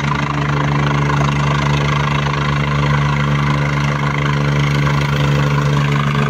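Helicopter's engine and rotors running with a steady, loud drone built on a low hum, holding level throughout.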